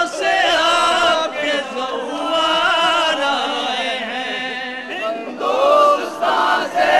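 A crowd of men chanting together in unison, an Urdu mourning lament (noha), sung loudly and continuously.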